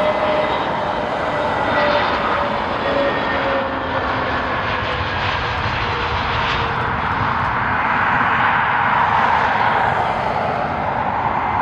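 Airliner jet engines passing close, a loud steady rush with whining tones that slowly fall in pitch.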